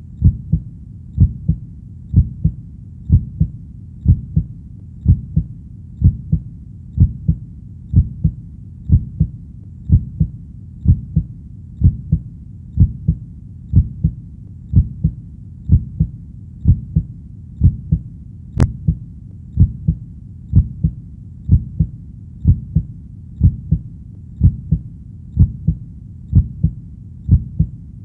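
Heartbeat sound: a steady, low 'lub-dub' double thump about once a second. One small click shows about two-thirds of the way through.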